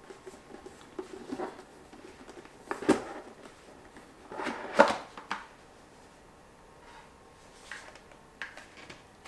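A small black gift box being handled and its lid worked off: rubbing and scraping with small clicks, and two sharp knocks about three and five seconds in, the second the loudest.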